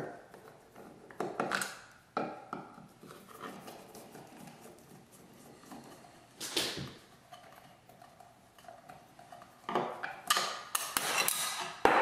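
Flathead screwdriver turning out the screws of a light-switch cover plate, with scattered small clicks and scrapes of metal on screw and plate. A louder run of clicks and rattles comes near the end as the cover plate comes off the wall.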